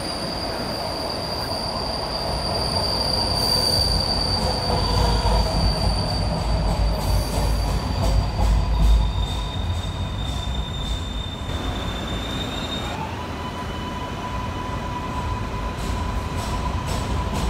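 MARTA subway train running through an underground station: a low rumble of wheels on rail, loudest about halfway, with steady high-pitched whines from wheels and motors. About twelve seconds in, a new whine rises in pitch and then holds steady.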